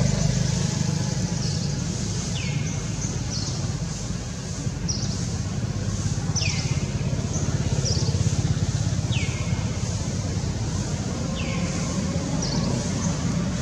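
Steady low drone of a running engine, with a short high chirp that falls in pitch every second or two.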